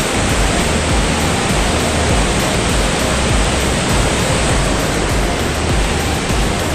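Loud, steady rush of wind buffeting the camera microphone in the open back of a moving jeep, with irregular low rumbles from the gusts.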